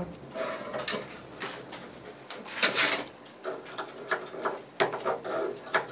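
Grooming shears snipping the fur around a dog's feet: short sharp snips at uneven intervals.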